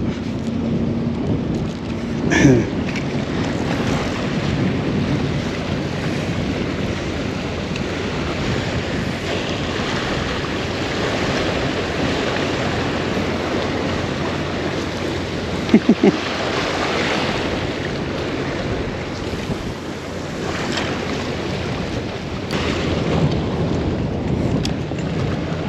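Wind buffeting the microphone over the wash of surf, a steady rushing noise, with a brief louder sound about sixteen seconds in.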